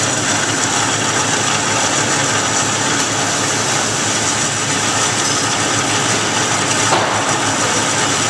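Vertical metal-cutting bandsaw running steadily, its blade cutting down through a metal workpiece. There is one brief knock about seven seconds in.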